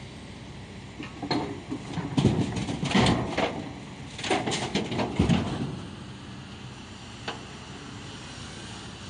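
Diesel engines running steadily while an excavator bucket tips mud and stones into a tipper truck's steel body: a rattling, crashing clatter from about a second in, in two main surges, dying away after about five and a half seconds.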